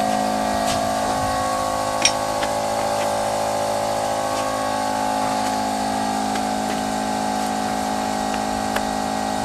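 Small air compressor running with a steady hum while it pumps air into a motorcycle tire to seat the bead. A sharp click comes about two seconds in.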